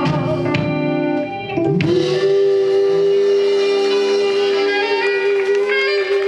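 Live band music: a song winds up and, about two seconds in, a single note is bent up into pitch and held long and steady as the final sustained note.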